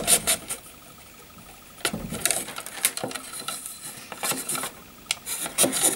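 Soaked rattan stakes being handled and pushed through the holes of a wooden basket base: scattered light clicks and taps with some rustling, more of them in the second half.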